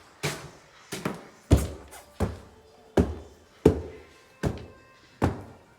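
Footsteps on a hard floor: about eight heavy, evenly paced steps, each a short thump with a brief echo.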